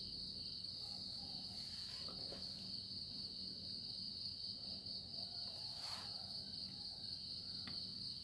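A steady, high-pitched trill of a cricket, with a few faint clicks as the plastic air filter cover of a brush cutter engine is handled.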